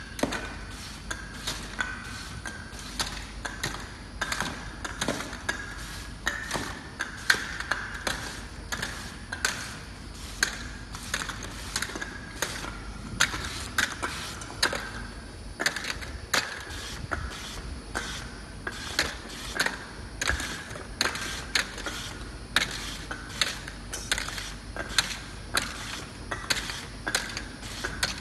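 Automatic flat-surface sticker labeling machine running, with a steady motor whine and hum from the conveyor drive. Sharp mechanical clicks come about twice a second, not quite evenly, as the label head feeds labels onto round lids passing on the belt.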